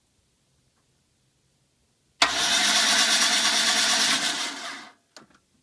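Starter motor of a VAZ-2109 (Lada девятка) cranking the engine for about three seconds, run by pressing the starter relay by hand instead of turning the ignition key. It starts abruptly about two seconds in and dies away when the relay is released, followed by two faint clicks.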